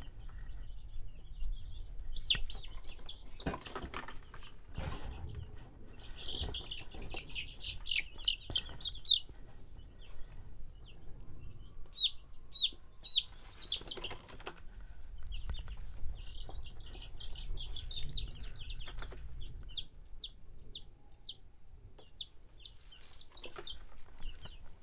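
Seven-day-old desi (native) chicks peeping as they are held in the hand, in quick runs of short high peeps with some single sharp peeps. Scattered bumps and rustles come from the chicks being handled.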